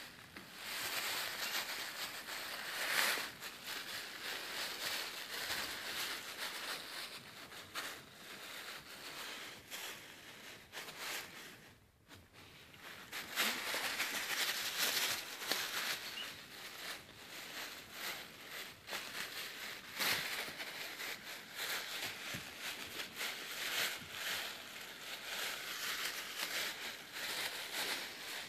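Puppies tussling over a thin plastic bag: continuous crinkling and rustling of the plastic with small scrabbling clicks, dropping into a brief lull about twelve seconds in.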